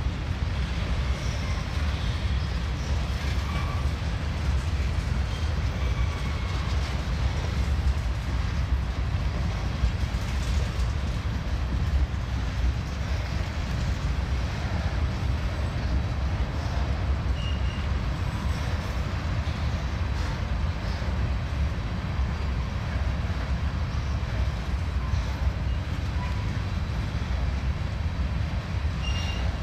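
Freight train of covered hopper cars rolling slowly past: a steady low rumble of steel wheels on rail, with a couple of short high squeals, one midway and one near the end.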